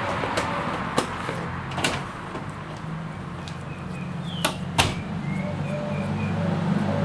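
Outdoor background: a steady low hum of distant traffic, growing a little louder near the end, with a few sharp knocks, two of them close together about four and a half seconds in, and faint short chirps.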